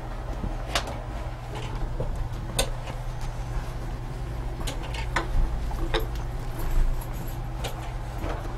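Scattered light clicks and knocks of objects being handled, at uneven intervals, over a steady low hum.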